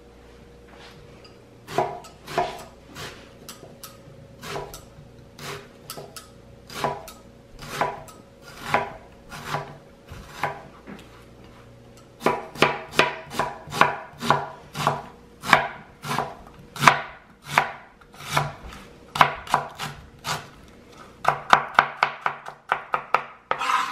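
Chef's knife chopping a red onion on a plastic cutting board: sharp knocks of the blade against the board, single strokes about a second apart at first, then quicker runs of strokes from about halfway, fastest near the end.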